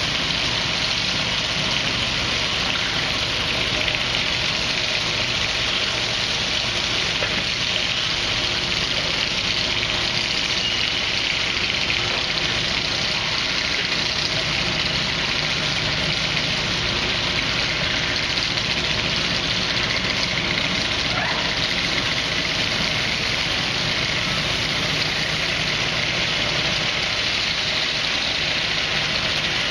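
Wood-Mizer LT50 band sawmill and shop machinery running steadily: a continuous engine hum under a loud, even hiss, with no pauses.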